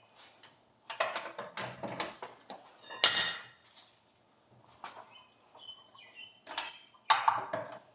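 Irregular metallic clicks and knocks of a bar and socket working on a car wheel's lug nuts as they are snugged, with the loudest knock about three seconds in and a cluster near the end.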